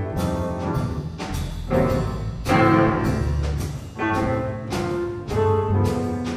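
Instrumental break in a slow jazz ballad: a grand piano plays a run of chords and melody notes, with deep low notes underneath and the rest of the band accompanying.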